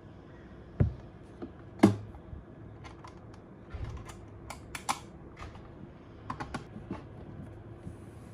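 Light, irregular clicks and taps, with two louder knocks about one and two seconds in.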